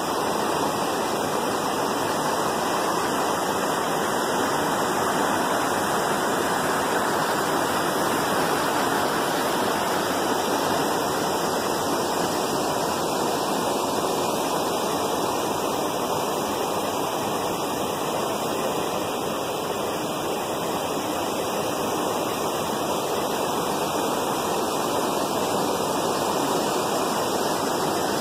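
Steady rushing-water sound effect, an even, unbroken hiss with no waves rising or breaking.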